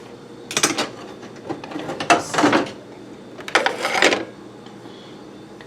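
Salt being shaken onto a plate of cooked eggs: three short rattling shakes, about a second and a half apart.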